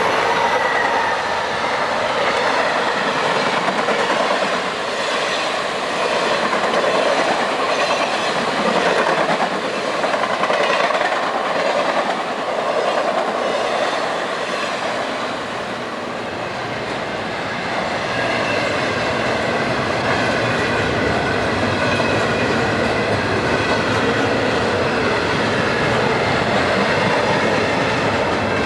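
A train passing close by, its steel wheels running steadily over the rails.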